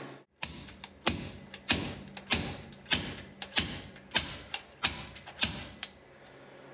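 A slide-hammer puller is slammed back over and over on the crankshaft end of a small-block Chevy, giving eight sharp metal clanks about two-thirds of a second apart. It is working a tight-fitting part loose, and the part is coming out only slowly.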